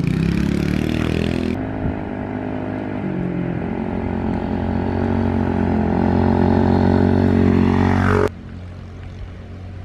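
Kawasaki KLX110 dirt bike's small four-stroke single-cylinder engine revving as the bike pulls away, its pitch climbing, then running along under throttle. About eight seconds in the sound drops suddenly to a quieter, steady engine hum.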